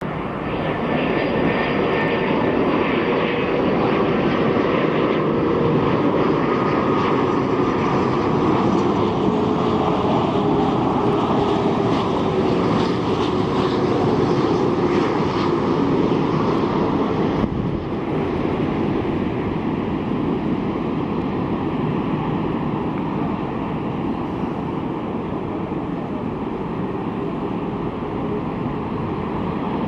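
Jet engines of an Airbus A330-200 airliner, loud and continuous, with a tone that slides slowly down in pitch as the aircraft passes.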